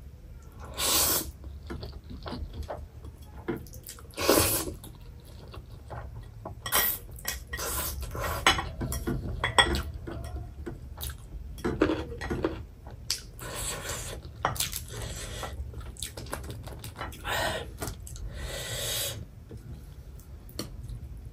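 Close-up eating sounds: metal chopsticks clicking and scraping against a plate as sauced Chapagetti noodles are picked up and eaten, in short irregular bursts every second or two.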